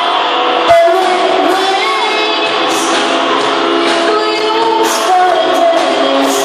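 Live rock band playing: a woman sings into a microphone over electric guitars, bass and drums. A hard drum hit lands under a second in, and cymbals crash at a steady pace.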